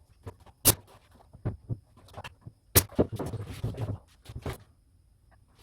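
Sharp knocks and handling noises from carpentry work with wooden pieces: two loud knocks, about a second and about three seconds in, with lighter taps between and a scraping rustle for a second or so after the second knock.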